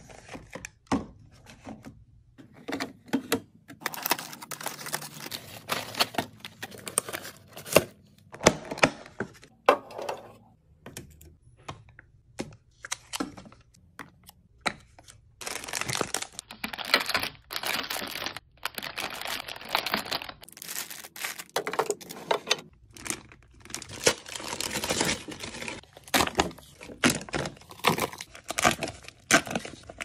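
Plastic food packaging crinkling and rustling as it is handled, among it a bag of apple slices and a multipack of plastic-wrapped string cheese, with sharp clicks and taps as plastic yogurt cups are set into a clear plastic fridge bin. The longest runs of crinkling come about halfway through and again a little later.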